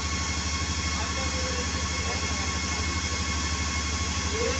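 Steady machine hum with a fast, even low throb and a faint steady whine above it, from power equipment running nearby.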